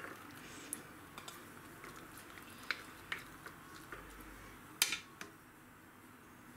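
Scattered soft taps and clinks of a wooden spatula and a spoon against a glass jar as fried eggplant slices and tomato sauce are packed into it, with one louder knock about five seconds in.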